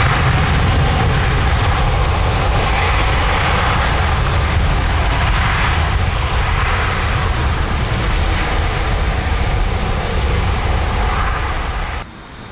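Airbus A330-900neo's Rolls-Royce Trent 7000 turbofans at takeoff thrust on the takeoff roll: loud, steady jet engine noise with a deep rumble. It cuts off suddenly near the end.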